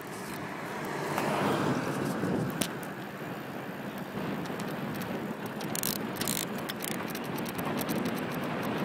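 Wind rushing over the microphone and tyre noise from a bicycle rolling along a paved road, swelling about a second in and then holding steady, with scattered light ticks.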